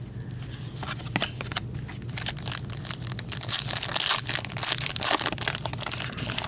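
Foil wrapper of a hockey card pack crinkling and tearing as gloved hands open it and handle the cards. It is a dense run of crackles that starts about a second in and is busiest in the middle.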